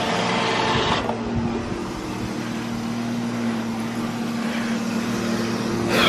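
iRobot Roomba robot vacuum running across a tile floor: a steady motor and suction-fan hum with a hiss. The hiss drops a little about a second in.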